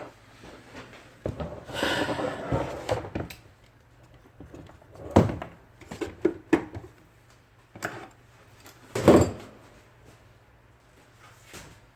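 Parts and tools handled on a workbench during a typewriter repair: a rustling stretch early on, then scattered knocks and clicks, the loudest about nine seconds in.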